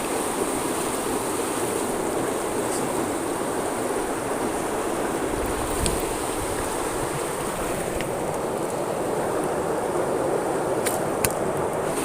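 Fast-flowing river water rushing steadily, swollen after a flood, with a thin, steady high-pitched buzz over it and a few faint ticks.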